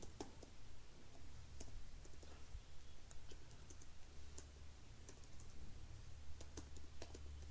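Computer keyboard keys tapped in short, irregular runs of clicks as a command is typed, over a steady low hum.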